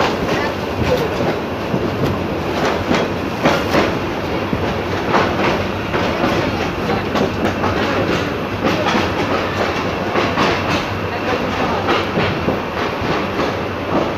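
Passenger train running through a station, heard from an open carriage window: a steady rumble of wheels on rail with many sharp clacks as the wheels cross rail joints.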